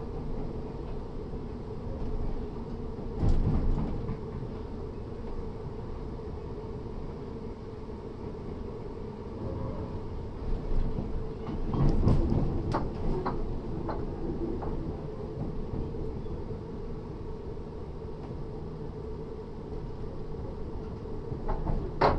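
Inside a British Rail Class 317 electric multiple unit with nose-suspended traction motors, running in towards a station stop: a steady rumble and hum, with low thumps about three seconds and twelve seconds in and a run of sharp clicks and knocks just after the second.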